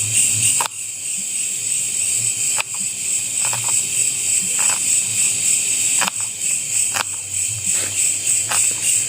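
Steady high-pitched chorus of night insects, crickets, with a fast pulsing shimmer, and a few short clicks or snaps scattered through it.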